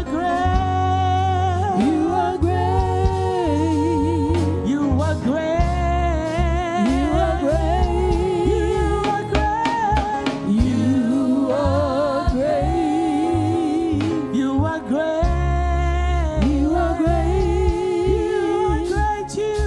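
Gospel praise music: singing with vibrato over a steady bass line.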